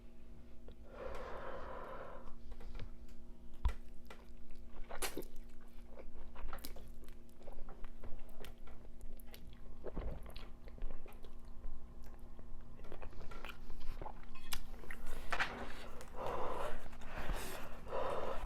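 Close-miked chewing of spicy noodles, with many small wet mouth clicks and a couple of longer breathy noises about a second in and near the end.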